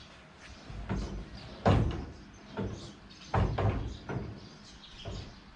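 A series of hard knocks and thuds, about five in a few seconds, the loudest about two seconds in.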